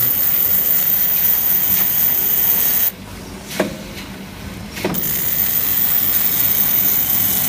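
Automatic drinking-straw pad printing machine running: a steady mechanical hiss over a low hum, which drops away for about two seconds midway, with two sharp knocks in the quieter stretch.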